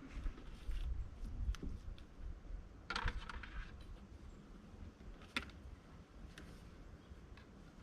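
Copper scrap wire being handled and worked by hand: a scattering of light clicks and a short scrape about three seconds in, over a low rumble.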